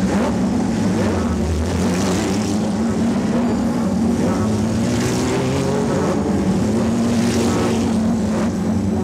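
Porsche 911 GT3 Cup race cars' flat-six engines running steadily at idle, their pitch wavering slightly.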